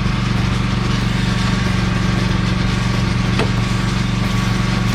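Belt sander running steadily with a low hum and a hiss of abrasive as it sands an oak rail down to a pencil line.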